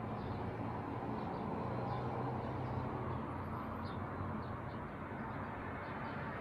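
Steady low background rumble with faint, short high chirps scattered through it.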